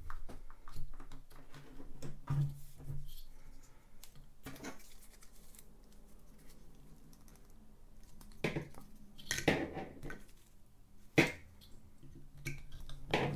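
Handling noise of an EcoFlow PowerStream microinverter and its cables: scattered plastic clicks and knocks as socket covers are worked and the stiff connectors are pushed into the unit's sockets, with the loudest knocks about eight to nine seconds in and again at about eleven seconds.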